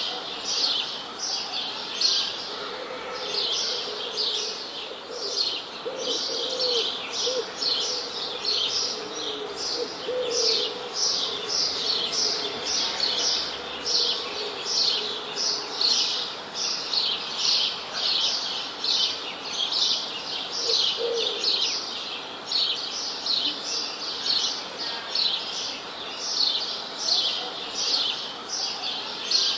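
Birds chirping: a steady run of short, high chirps that slide downward, about two a second, with fainter lower warbling calls now and then underneath.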